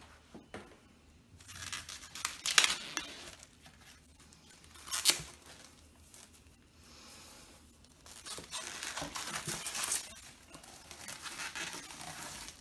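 Plastic shrink-wrap crinkling and tearing as hands work it off a large hardcover book. There is rustling with a couple of sharp snaps in the first half, then a longer stretch of crinkling near the end.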